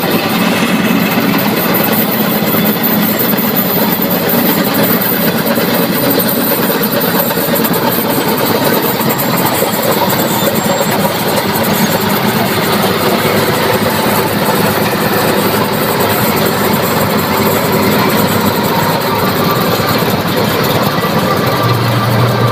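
Tractor-mounted Balkar combine harvester on a John Deere 5075E diesel tractor, running steadily while working through the paddy field: a loud, even mechanical noise from its engine and threshing machinery.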